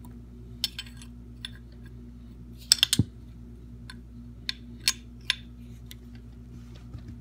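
Small metal wrench clicking and clinking against the brass elbow fitting of a dishwasher water inlet valve as it is worked to unscrew the fitting, which is on too tight to turn. The clicks are scattered, with a quick cluster of the loudest a little before the middle, over a steady low hum.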